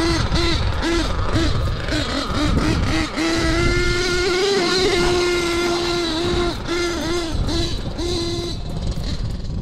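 Nitro RC monster truck's Force .32 glow engine running at high revs, blipped on and off the throttle, then held steady for about three seconds in the middle, then blipped again before easing off near the end. It keeps running while driving through pond water, with a rain air filter keeping water out of the intake.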